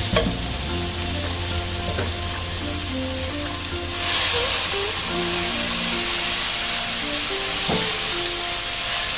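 Chicken sizzling in a hot hammered carbon-steel wok while a metal spatula scrapes and stirs it, with a few sharp clicks of the spatula against the pan. About four seconds in, the sizzle jumps louder and hissier as sliced cabbage, carrots and broccoli are tipped into the wok.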